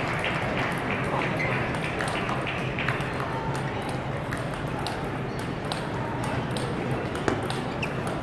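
Table tennis balls clicking off paddles and the table, short sharp ticks at an uneven rate, over a murmur of voices in the hall.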